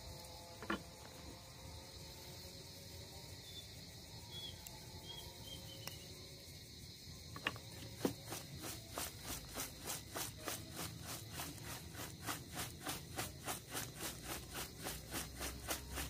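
Fried cicadas, chopped chilli and spring onion being tossed in a stainless steel bowl, swishing and rattling in a regular rhythm of about four strokes a second from about halfway through. Before that come a few single sharp knocks of a cleaver against the bowl.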